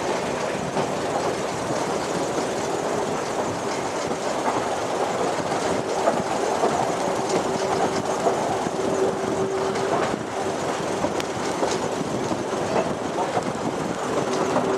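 Class 108 diesel multiple unit running at speed, heard from on board: steady rumble of wheels on the rails with a few clicks over rail joints. A faint steady whine is strongest around the middle.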